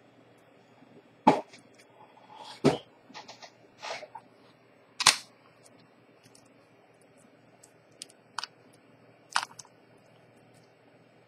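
Sharp metal clicks and taps from a pin tool and the steel folding clasp of a Chanel J12 bracelet being worked by hand. The clicks are irregularly spaced, loudest about a second in and about five seconds in, with a pause before a few more near the end. A faint steady hum lies underneath.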